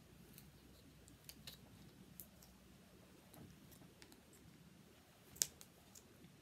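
Wire cutters snipping a plastic HDPE bottle cap into pieces: a few faint, sparse clicks, with one louder snip near the end.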